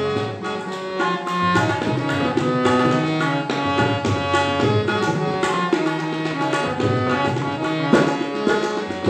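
Instrumental interlude of a sung children's song: tabla playing a steady rhythm under a held, pitched melody line.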